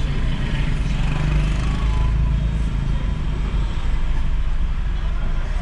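Steady low rumble of a car moving slowly through town traffic, heard from inside the cabin, with faint street noise outside.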